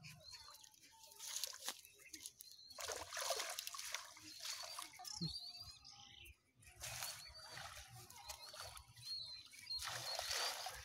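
Water sloshing, trickling and dripping in irregular bursts as a bamboo push net is worked through shallow water and wet water hyacinth is lifted and pulled from the net, with a short lull about halfway through.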